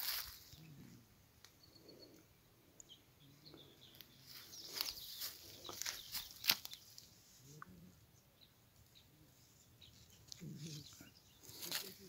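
Rustling and crackling of footsteps brushing through dry scrub and leafy crop plants, in irregular bursts with quieter stretches between, and a few faint bird chirps.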